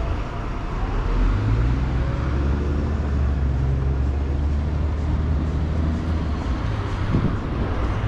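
A large motor vehicle's engine running close by, a low steady hum that comes up about a second in and drops away after about six seconds, over general street noise.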